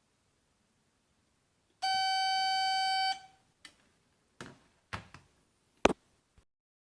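A buzzer sounds one steady mid-pitched tone for about a second and a half, starting about two seconds in. A handful of sharp clicks and knocks follow, the loudest near the end.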